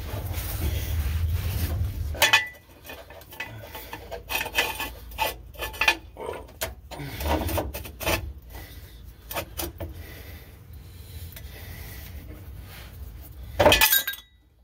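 Irregular metal clinks and scraping as a bolt and nut are worked in by hand on a van's transmission support crossmember, with a sharp knock about two seconds in and another near the end.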